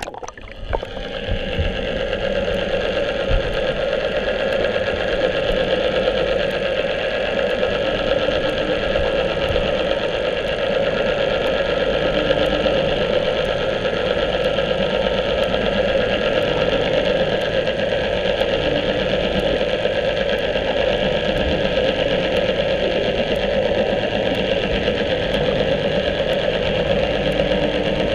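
Steady mechanical drone of a boat's engine heard from underwater, muffled by the water, with faint regular ticks about every ¾ second.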